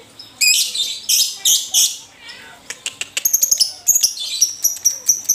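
Lovebird chattering: a run of harsh, screechy chirps in the first two seconds, then fast clicking chatter mixed with high whistled notes.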